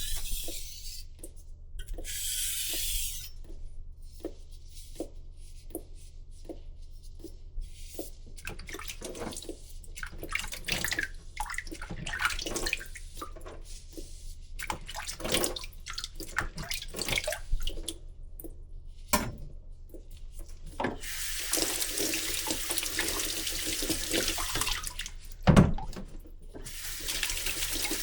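A tap running water into a sink, a steady hiss over the last seven seconds, with one dull knock in it. Before that, a long run of short scraping strokes, typical of a kitchen knife being pushed and pulled across a wet whetstone.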